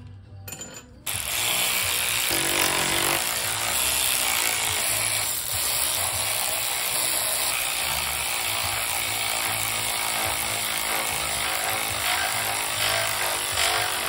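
Cordless power ratchet driving the cylinder-head bolts down on an LS1 V8, starting abruptly about a second in and running loud and steady until it stops near the end.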